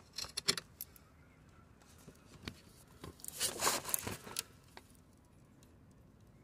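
Rustling and scraping handling noise as the camera and hands move in the cramped engine bay: a short burst about half a second in, a single click around two and a half seconds, and a longer scuffling cluster from about three to four and a half seconds.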